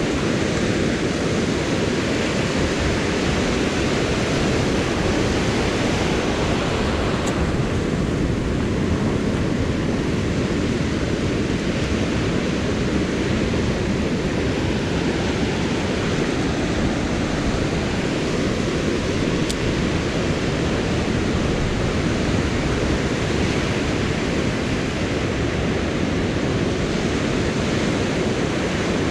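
Surf breaking and washing up a sandy beach, mixed with wind: a steady rushing noise.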